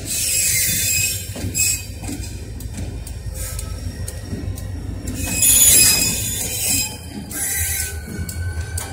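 Approaching EMD SD40-2 diesel locomotive leading a freight train: a steady low rumble from its 16-cylinder two-stroke engine, with several loud high-pitched sounds over it, the loudest lasting about a second near the middle.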